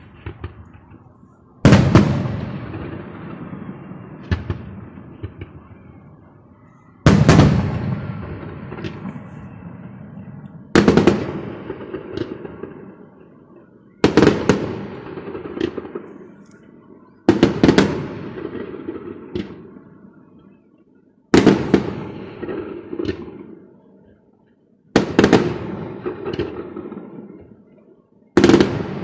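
Aerial firework shells bursting: eight loud bangs, one every three to four seconds, each followed by crackling and a rumbling tail that dies away.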